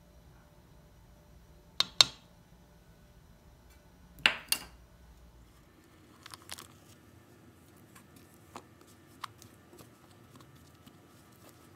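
Kitchen handling sounds: a plastic measuring spoon knocking sharply against a mixing bowl, two pairs of knocks about two and four seconds in, then butter's paper wrapper crinkling briefly, and a spatula ticking and scraping in flour in the bowl.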